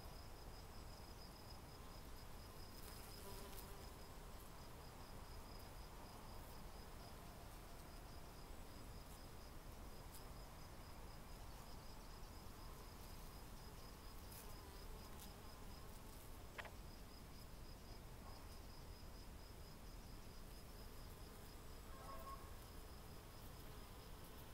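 Faint buzzing of honey bees working eucalyptus blossom, under a steady, high-pitched pulsing insect trill that runs almost without a break.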